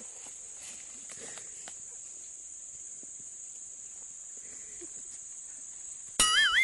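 Steady high-pitched drone of insects with faint rustling. Near the end a sudden, much louder warbling call cuts in.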